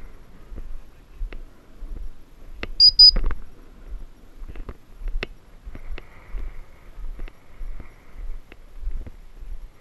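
Muffled thumps and knocks from an action camera jolting with each step along a snowy track, roughly one to one and a half a second. There are two short high chirps close together about three seconds in.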